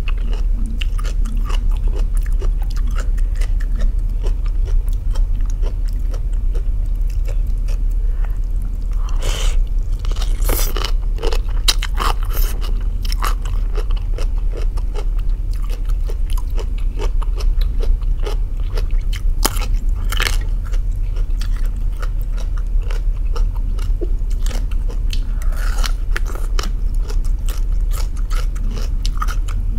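Close-miked crunchy chewing of raw cabbage, with crisp bites and mouth sounds that come in a steady run and grow louder a few times near the middle. A constant low hum sits underneath.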